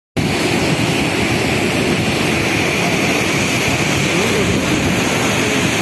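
Cyclone-driven storm surf breaking and washing over the beach, with strong wind on the microphone: a loud, steady rush of noise that starts abruptly just after the beginning.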